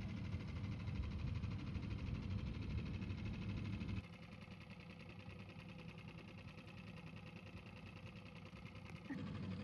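Small outboard motor of a rental boat running steadily with a buzzing hum. It gets quieter about four seconds in and louder again near the end.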